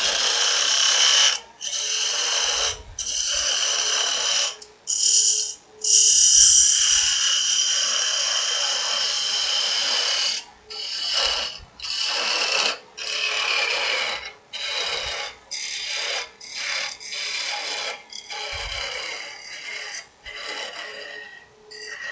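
A parting tool cutting into a spinning aspen goblet blank on a wood lathe, at the base where it is being parted off: a high-pitched hissing scrape with a ringing whine. The cuts run long for the first half, then come as short cuts about a second long with brief pauses between.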